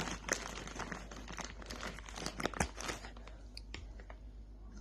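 Plastic cracker wrapper crinkling and rustling as it is handled, busy for about three seconds, then a few scattered crackles.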